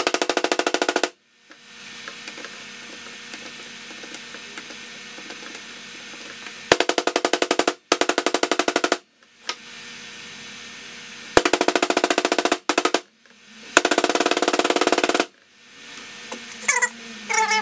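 A clay-filled printer barrel being pounded down on a workbench in quick spells of rapid knocks, each about a second long, about six times. This packs the clay down and drives out air bubbles. A steady hum fills the gaps between spells.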